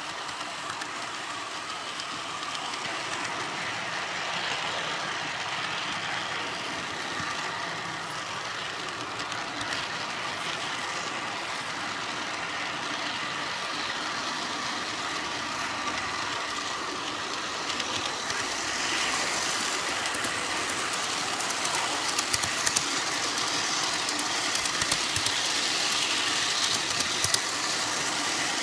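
G-scale model train rolling along outdoor track, heard from on board the caboose: a steady whirring of wheels and drive with a faint steady whine. It grows louder in the last third, with quick irregular clicks of the wheels on the track.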